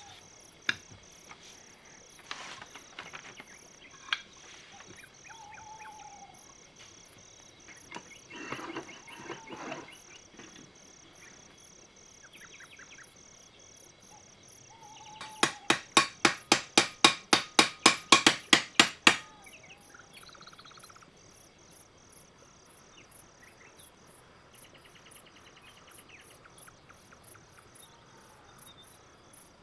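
A run of about fourteen quick hammer taps on metal, roughly four a second and growing louder, on a small steel toy tank hull clamped in a bench vise to set a road-wheel axle. Before the taps come light clinks and a short clatter of small metal parts being handled.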